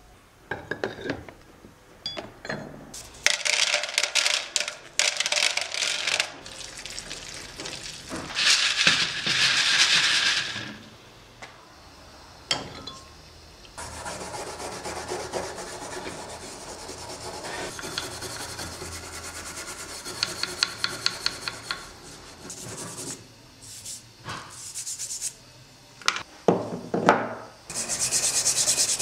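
Rusty cast-iron clothes-iron parts scrubbed by hand with a stiff brush, in bursts of quick back-and-forth strokes. Some of the scrubbing is on the wet, rust-covered soleplate.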